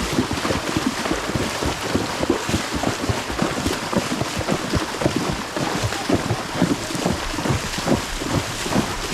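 Water splashing continuously as a horse wades through a flooded river, with wind buffeting the microphone.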